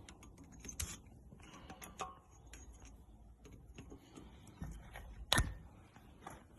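Scattered sharp clicks and knocks of tools and metal parts being handled, the loudest a little past five seconds in.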